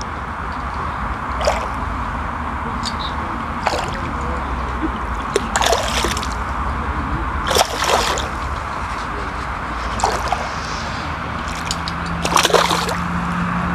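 A hooked crucian carp splashing and thrashing at the water's surface as it is played on the line: a run of irregular short splashes over steady outdoor background noise.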